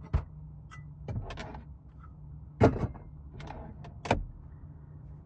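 Van cabinet doors and latches being opened: about five separate sharp clicks and clunks, the loudest about two and a half seconds in, over a steady low hum.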